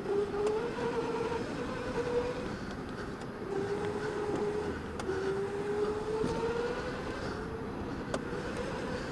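Electric go-kart motor whining from the onboard seat, its pitch rising and falling with speed through the corners, over a rushing noise of tyres and air.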